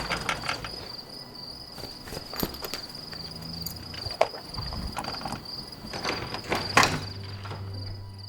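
Crickets chirping steadily, a pulsing high trill, with a few scattered knocks and thuds. The loudest knock comes about seven seconds in.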